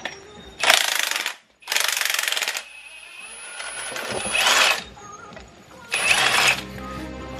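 Impact wrench hammering on a strut's top nut in four short bursts, each under a second, the third swelling up before it stops.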